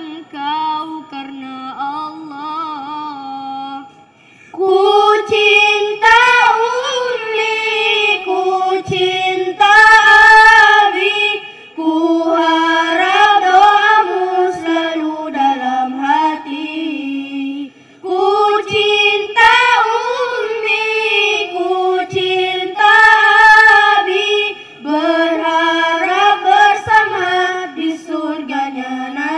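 Background song: a female voice singing a slow, melodic Islamic song line in long phrases, with short breaks between them.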